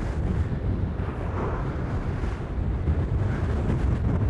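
Strong wind buffeting the microphone aboard a catamaran sailing fast in high wind: a steady, heavy low rumble.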